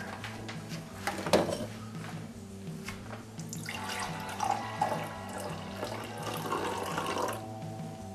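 Hot coffee being poured from a glass coffee-maker carafe into a ceramic mug: a splashing pour lasting a few seconds, after a knock about a second in.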